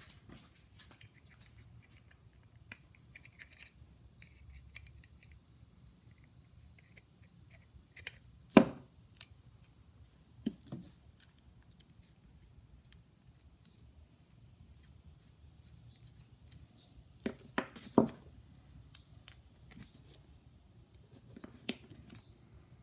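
Scattered small clicks, taps and scrapes of metal parts being handled as a screwdriver pries at the leather piston cup on the end of a phonograph's hydraulic lid-support rod. The loudest sharp click comes about eight seconds in, and a cluster of sharp clicks follows about ten seconds later.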